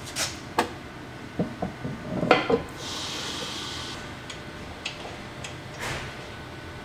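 Metal clinks and clicks of lug nuts being handled and spun by hand onto a car's wheel studs, densest about two seconds in, followed by a brief rasp and a few lighter clicks.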